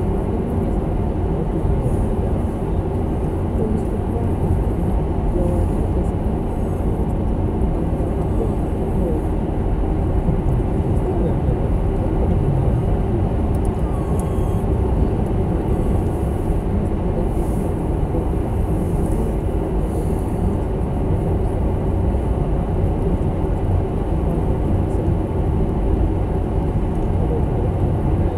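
Steady road and engine noise inside a Toyota Corolla's cabin while driving, with tyres running on a wet, slushy road.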